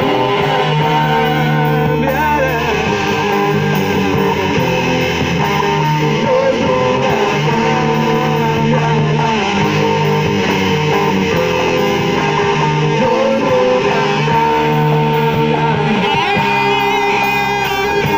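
Guitar-led band music from a worship song, an instrumental stretch with no singing: sustained chords over a steady bass line.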